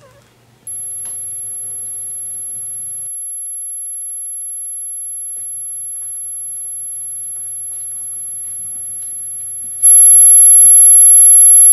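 A continuous, high-pitched electronic tone starts about a second in and holds without wavering, then jumps much louder near the end.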